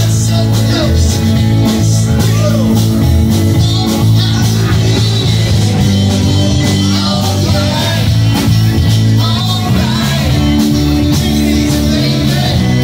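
Live blues-rock band playing loud: electric guitars and drums over a heavy bass line, with singing.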